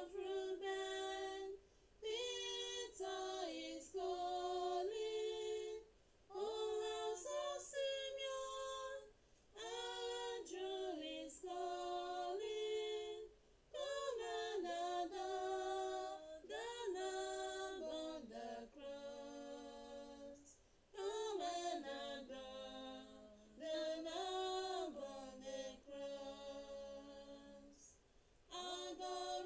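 A woman's voice singing a hymn unaccompanied, in phrases of two to four seconds with short breaks between them.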